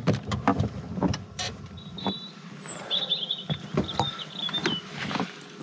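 A car's rear door being opened from inside and someone climbing out over the bedding: a string of clicks, knocks and rustles from the handle, door and bedding, with faint high chirps in the background.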